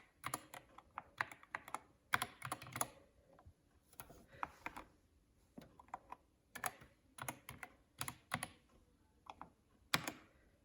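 Keys being typed on a Dierya DK61 Pro mechanical keyboard: quick runs of clicky keystrokes in irregular bursts, with short pauses between them.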